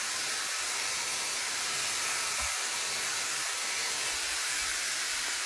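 Bio Ionic Smart-X hair dryer running with a diffuser attachment: a steady hiss of blowing air.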